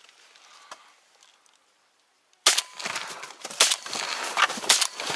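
A faint quiet stretch, then from about halfway in a loud, close rustling and crackling right at the microphone, with several sharp cracks standing out.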